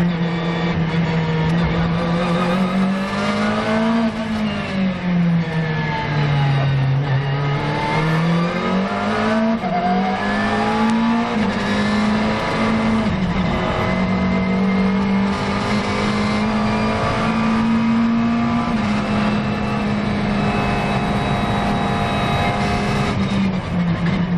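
McLaren 650S GT3 race car's twin-turbo V8 at full racing pace, heard from inside the cockpit: the engine note climbs, then drops sharply at each gear change or lift, several times over.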